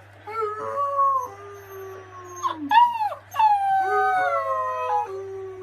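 A dog howling: several long, drawn-out howls that slide down in pitch, with one rising-and-falling howl about halfway through.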